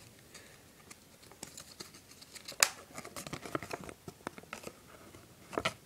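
Paper leaflet rustling and crackling as it is unfolded and handled: scattered light crinkles, with sharper crackles about two and a half seconds in and near the end.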